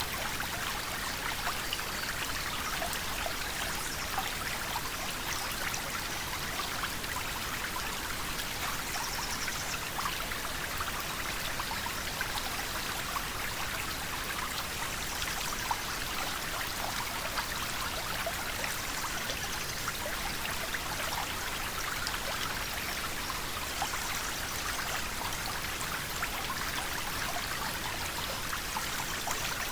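A river flowing: a steady rushing and babbling of water with fine splashing trickles.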